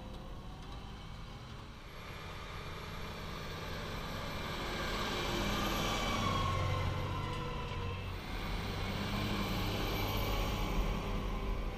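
Large farm tractor's diesel engine running steadily under load while it tows a land leveller through loose soil, growing louder towards the middle as it comes close.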